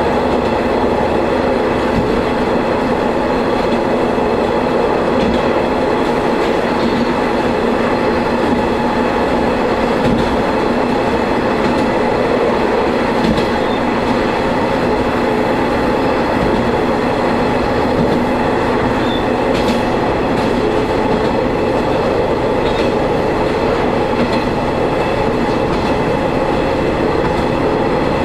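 Diesel railcar running at a steady pace, heard from inside the car: a constant engine drone under the noise of the wheels on the rails.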